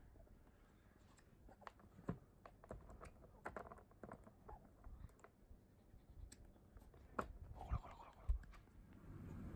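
Shiba Inu puppy chewing a rope toy and shifting about inside a plastic pet carrier: faint, irregular clicks and scratches of its teeth and claws against the plastic, a few sharper knocks in the second half.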